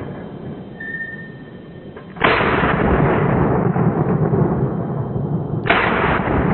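Two shotgun shots fired at a clay target, about three and a half seconds apart: the first about two seconds in, the second near the end. A loud rushing noise fills the gap between and after them. Both shots miss and the target gets away.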